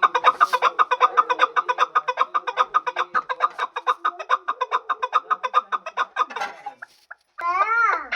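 Chukar partridge calling: a fast run of repeated clucking notes, about eight a second, for some six seconds. After a short pause comes one drawn-out note near the end that rises and then falls.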